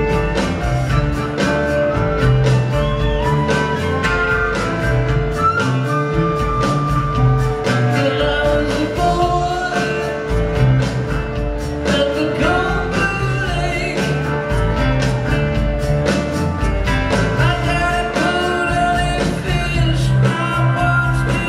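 Live string band playing a song through the PA with a steady beat: drum kit, electric bass, acoustic guitars, banjo, mandolin and keyboards.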